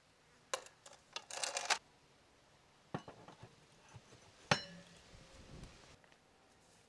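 Metal clinking and rattling of a vertical grill spit with wire skewer prongs as it is handled. Later comes one louder clank with a short metallic ring as the spit goes into its stand.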